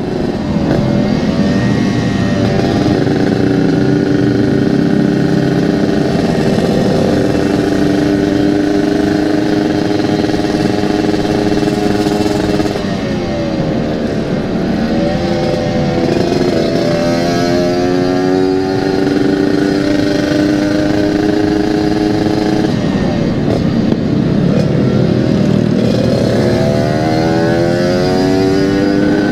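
Yamaha RX-King 135 cc single-cylinder two-stroke engine running through an aftermarket local exhaust while riding, with steady cruising broken by the throttle being eased off and the engine revving back up, the pitch climbing again about 13 seconds in and a few more times later.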